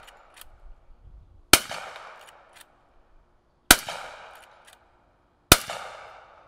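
Three shots from a Winchester Model 1892 lever-action rifle converted to .45 ACP, about two seconds apart, each with a short echoing tail. Faint metallic clicks of the lever being cycled come between the shots.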